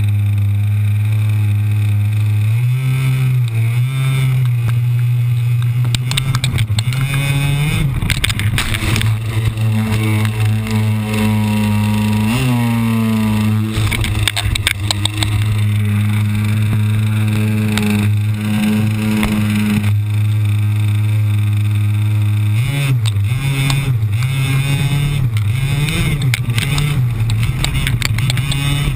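Small engine running steadily close up, its pitch wavering up and down a few seconds in, around twelve seconds in, and again over the last few seconds as the throttle changes.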